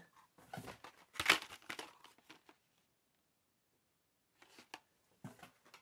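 Soft crinkling and rustling of toy packaging being handled and opened, for about two seconds, then a pause and a few light taps near the end.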